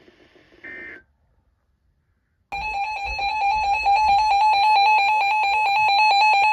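A short high electronic tone, a pause, then about two and a half seconds in a rapid electronic alert beeping starts at one steady pitch, several pulses a second, loud and continuous: an emergency alert receiver's alarm tone announcing a new warning.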